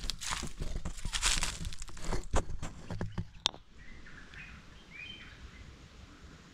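Rustling and crunching with a few sharp cracks for about the first three and a half seconds, then a few faint bird chirps.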